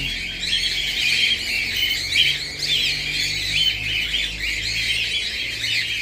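Cockatiels chirping and squawking: a busy, overlapping stream of short high calls.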